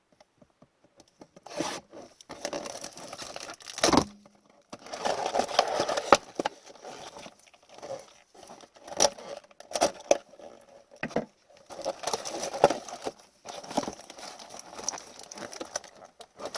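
Plastic wrapping tearing and crinkling as a blaster box of Upper Deck hockey cards is unwrapped and opened, in irregular rustling bursts, with a sharp knock about four seconds in.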